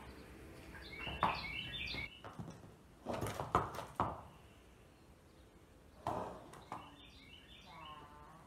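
Small birds chirping in short twittering phrases, twice, with a few sharp knocks and thumps about three seconds in and again around six seconds, and a short pitched call near the end.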